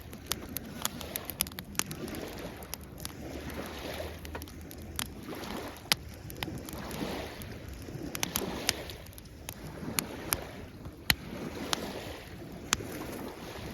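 Wood campfire crackling with sharp, irregular pops, over small waves washing in and drawing back on the shore every couple of seconds.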